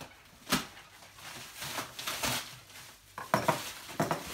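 Box cutter being handled and worked at the wrapping of a cardboard box: scattered sharp clicks and scrapes, a single one about half a second in and the loudest cluster a little over three seconds in.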